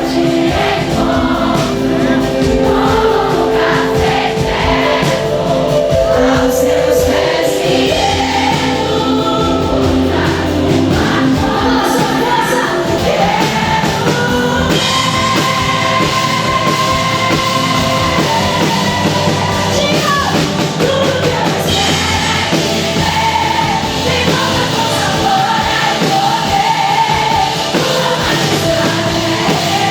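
Live gospel worship song: a woman singing lead over a full band with drums.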